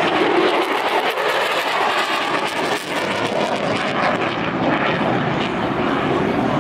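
F-16 fighter jet's single engine heard in a flying display: a loud, steady rushing noise of a jet passing.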